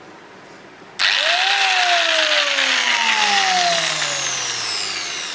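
Angle grinder's electric motor switched on about a second in, whining up to speed within half a second, then winding down with a steadily falling whine as it coasts. It runs again on its newly fitted carbon brushes.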